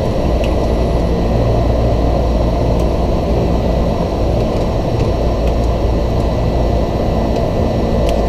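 Cessna 208B Grand Caravan EX's Pratt & Whitney PT6A-140 turboprop running steadily: a dense low drone with a thin, steady high whine above it.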